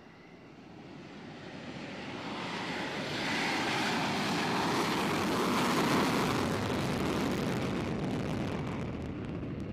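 F-35 fighter jet's engine running at full power on its takeoff roll, afterburner lit: a roar that swells over the first few seconds, peaks in the middle, eases slightly and then cuts off suddenly near the end.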